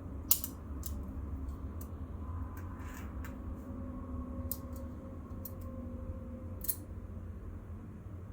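Metal parts of a Maxace Scorpius balisong clicking and tapping together as they are handled and fitted during assembly: a handful of sharp, separate clicks, over a low steady hum.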